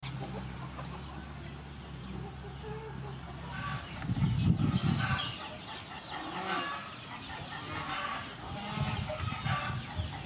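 Chickens clucking in a farmyard, with a steady low hum for the first four seconds and a louder low rumble about four seconds in.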